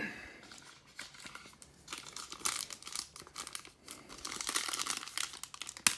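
Foil Panini Revolution trading-card pack being torn open and crinkled between the fingers. It is mostly quiet at first, and the crinkling and tearing pick up from about two seconds in.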